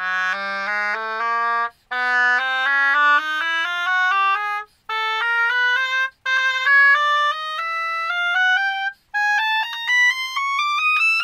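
Bassoon playing a rising chromatic scale, note by note from its low register up into its high register, as a tuning warm-up. The scale comes in several phrases with short breaks between them.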